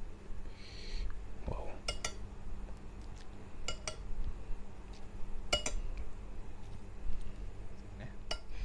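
Tableware clinking against a glass soup bowl: four sharp, ringing clinks about two seconds apart, several of them doubled, with a short soft rustle near the start.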